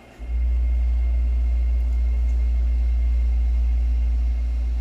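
A loud, steady low hum or rumble that comes on suddenly a moment in and holds steady.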